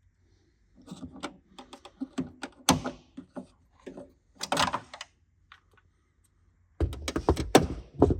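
Plastic clicks and knocks from a tail light bulb carrier board and its wiring connector being handled. The clicks are scattered at first, with a quick run of them near the end.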